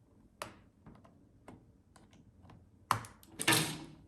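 Scattered sharp plastic clicks from a laptop's plastic case being handled and pried apart, then a louder short scraping rattle near the end.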